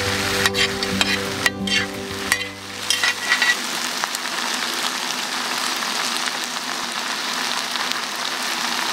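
Food frying in a pan on a camp stove, a steady sizzle, with a few clicks of a utensil stirring in the first few seconds.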